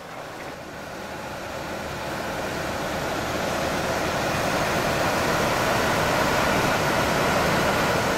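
Steady rushing noise of airflow and engines on a Boeing 737-300 flight deck in the climb, growing louder over the first few seconds and then holding steady.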